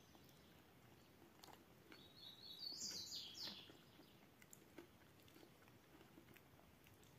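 Faint eating sounds, a spoon clicking against a plate and chewing, with a small bird chirping briefly from about two seconds in, the loudest sound here.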